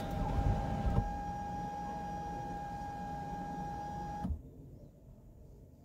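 Electric panoramic sunroof motor of an MG Gloster running with a steady whine as the roof closes, heard inside the cabin, then stopping with a click a little over four seconds in as the roof shuts.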